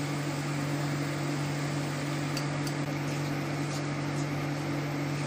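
Steady mechanical hum of running kitchen equipment: a low drone over an even hiss, with a few faint light ticks around the middle.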